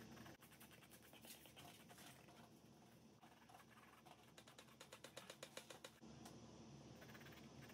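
Very faint scratching of a paintbrush working on canvas, with a quick run of soft ticks a little past the middle.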